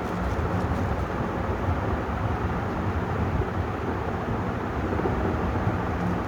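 A 56-inch Vision ceiling fan running steadily: a low motor hum under the rush of air from its blades.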